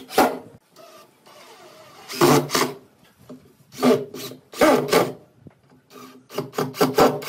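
18V cordless impact driver driving screws into wood, in several short bursts of hammering half a second or so long, with brief pauses between them.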